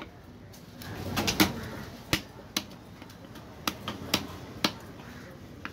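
A long knife chopping through a cobia head on a wooden chopping block: a run of sharp, irregular chops, roughly eight or nine, as the head is split into pieces.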